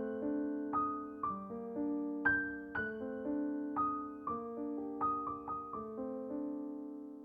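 Background music: a soft piano melody of plucked-sounding notes that ring out and fade, a few notes a second.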